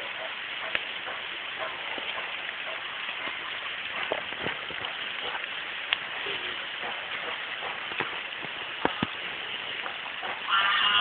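Steady rain falling on leaves and undergrowth, an even hiss dotted with scattered drop ticks. Near the end a short, louder high-pitched call rises over it.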